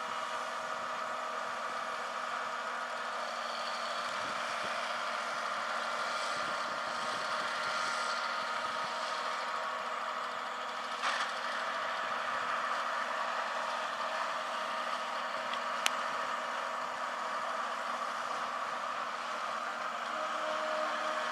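John Deere 4840 tractor and pull-type forage harvester chopping standing corn: a steady mechanical drone of engine and chopper. A single sharp click about three-quarters of the way through.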